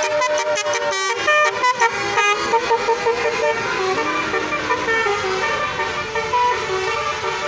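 Bus telolet horn, a set of multi-trumpet musical air horns, playing a quick melodic run of changing notes: short choppy blasts in the first couple of seconds, then longer held notes that bend in pitch.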